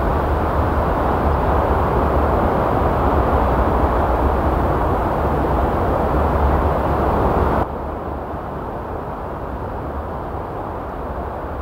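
Surf on a sandy beach, a steady low roar of breaking waves. About eight seconds in it drops suddenly to a quieter, duller level.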